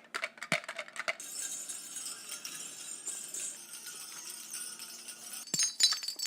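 A sound-making dance mask, made to resemble an Indigenous mask, being shaken by hand. Its attached rattles give a steady jingling shimmer, with a few sharp clicks at the start and again near the end.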